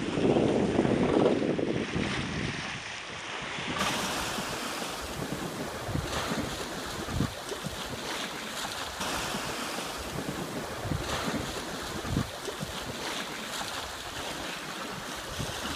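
Wind and waves aboard a sailing yacht under way: wind buffeting the microphone, heaviest in the first couple of seconds, over steady rushing water, with a few short knocks later on.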